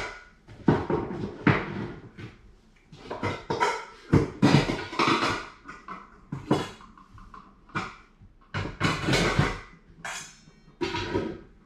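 Cookware and dishes being handled, with irregular knocks and clattering, some with a short metallic ring, as breakfast cooking gets under way.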